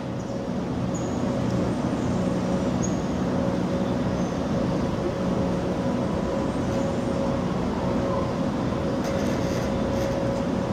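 Steady mechanical hum of the Niederfinow ship lift's drive machinery running, with several steady tones held throughout and a few short high squeaks about one and three seconds in.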